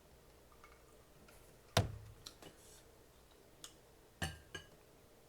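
A handful of sharp clicks and taps from food and tableware being handled while eating. The loudest comes about two seconds in, and smaller ones follow through the next few seconds.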